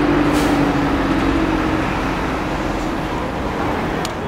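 City road traffic: cars and a coach running past, a steady noise with a low engine hum that fades out about halfway through.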